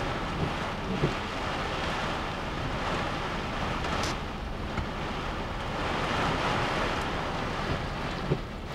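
Tropical-storm wind gusting and heavy rain beating on a vehicle, heard from inside through the glass: a steady rush that swells in the gusts, with a couple of brief knocks.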